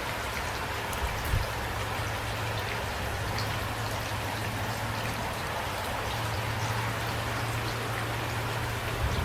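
Steady rain falling, an even hiss with individual drops ticking through it. A couple of brief low thumps stand out, one about a second in and one near the end.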